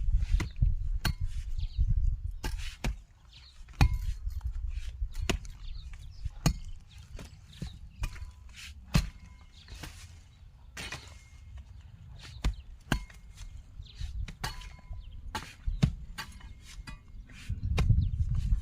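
A weeding tool chopping into hard, dry, cracked clay soil in irregular strikes about once a second.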